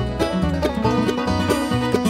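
Instrumental bluegrass music: quick banjo picking over a moving bass line.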